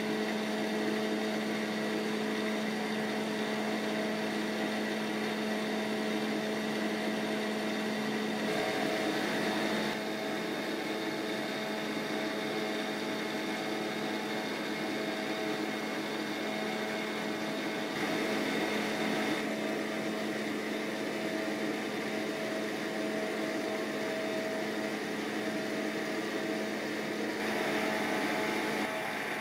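Steady hum of a water-circulating pump motor in a test tank, a constant low tone over a broad hiss of moving water. The balance of the hum shifts slightly a few times.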